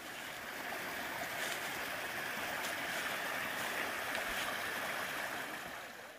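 A small stream running, a steady even rush of flowing water. A few faint clicks sound over it, and it fades a little near the end.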